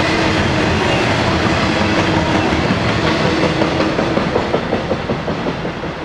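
Double-stack intermodal train's well cars rolling past, steel wheels clattering over the rail. From about halfway the clatter breaks into distinct clicks and fades as the last cars go by.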